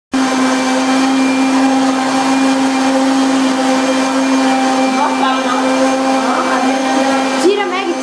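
Electric blender motor running steadily at one even pitch, switched on right at the start. A voice comes in over it near the end.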